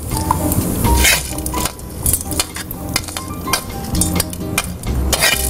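A steel spoon scraping and clinking against a steel kadai in repeated short strokes, as the fried beetroot mixture is scooped out into a steel mixer-grinder jar.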